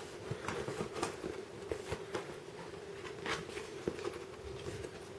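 Hands working at a cardboard box, trying to get it open: scattered light taps, scrapes and rustles over a faint steady hum.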